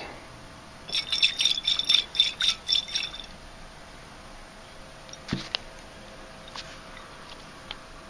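Glass jar ringing with about nine quick clinks in a row over two seconds as it is tilted and handled, then a single knock about five seconds in.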